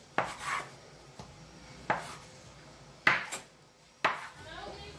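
A kitchen knife cutting through bread dough and knocking on the table top about four times, a second or so apart.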